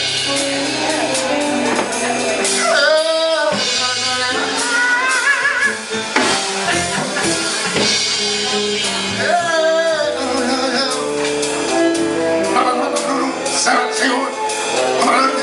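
Slow R&B music: a singer holding long notes with a wide vibrato over steady keyboard and bass backing, with some speaking voices mixed in.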